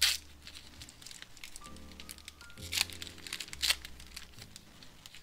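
Foil wrapper of a 2022 Bowman Draft baseball card pack being torn open and crinkling. A sharp rip comes at the start, with more crinkles about three and three-and-a-half seconds in, over background music.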